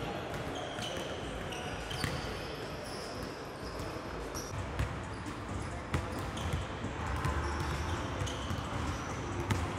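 Basketballs bouncing on a hardwood gym floor, a handful of separate thuds at irregular intervals, with short high squeaks of sneakers on the court.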